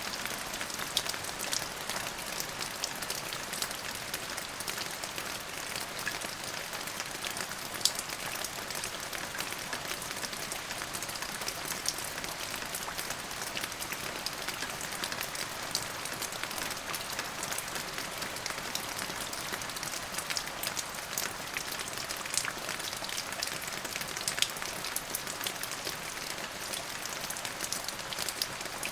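Steady rain falling, a constant hiss dotted with many sharp, close drop impacts.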